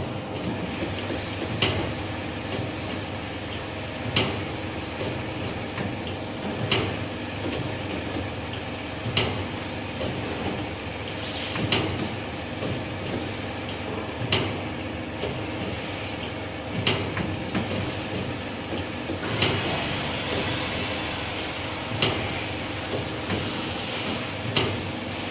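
Automatic band saw blade sharpening machine running: a steady motor hum with a sharp knock repeating about every two and a half seconds as it works through its grinding cycle. A louder hiss joins in for a few seconds about three quarters of the way through.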